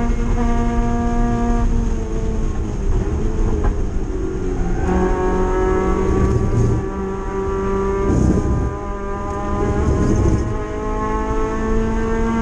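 Mazda MX-5 race car's four-cylinder engine, heard from inside the cabin, running hard on track. The engine note drops about two seconds in and climbs again near the end.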